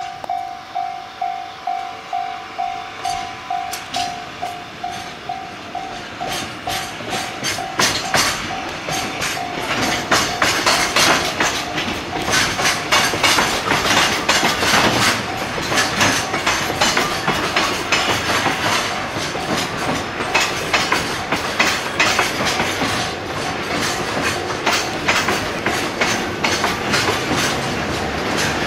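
Freight wagons rolling past, their wheels clicking rapidly and steadily over rail joints, growing louder over the first several seconds. At first a level-crossing bell rings in a steady repeating ding, fading out under the wheel noise about a third of the way in.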